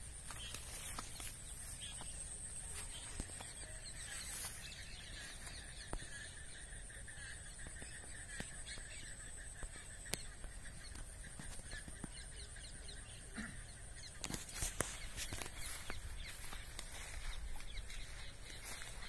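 Faint outdoor ambience: a steady high-pitched whine throughout, a lower continuous tone from about four to thirteen seconds in, and a low rumble underneath.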